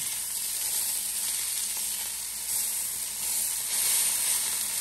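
Chicken breast frying in olive oil in a hot pan: a steady high sizzle that swells briefly twice as the breast is turned over with metal tongs.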